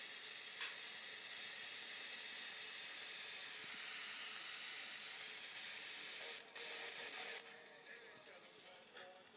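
FM radio static from a software-defined radio receiver in wide FM mode: a steady, loud hiss of an untuned or weak channel. It breaks off briefly about six and a half seconds in, then drops away about seven and a half seconds in as the tuning moves, leaving a much fainter, patchy sound.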